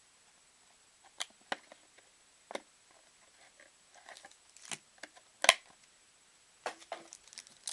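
Scattered light taps and clicks of trading cards and card packs being handled and set down, with one sharp knock about five and a half seconds in.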